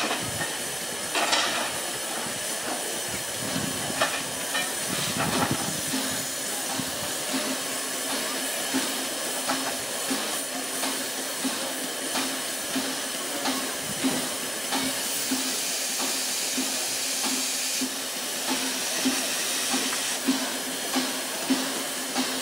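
LNER A3 Pacific steam locomotive Flying Scotsman standing at rest, steam hissing steadily. A few sharp knocks come in the first few seconds, then a low hum that pulses about once a second.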